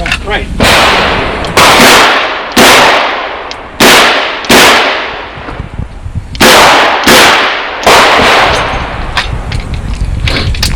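Chiappa Rhino 40DS revolver firing .38 Special rounds in a string of about eight loud shots, unevenly spaced half a second to a second and a half apart, each ringing out briefly. Fainter, sharper cracks follow near the end.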